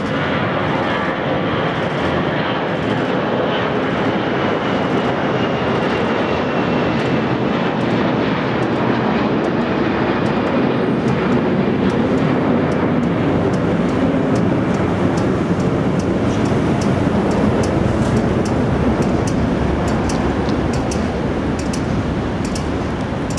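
Airbus A340 airliner climbing out after takeoff, its four jet engines giving a steady roar. Thin whining tones slide down in pitch over the first few seconds, and the sound turns to a deeper rumble as the plane climbs away.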